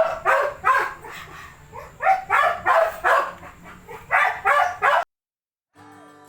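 A dog barking repeatedly in quick runs of two or three barks, cut off suddenly about five seconds in. Soft background music with plucked and chiming notes starts just before the end.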